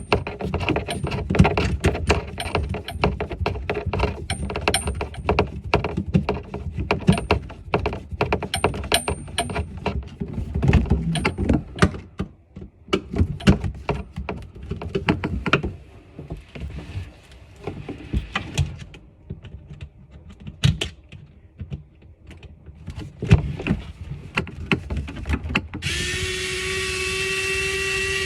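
Hand tools and fittings knocking and clicking irregularly during faucet-replacement work under a washbasin; near the end a small power tool's motor starts and runs with a steady whine.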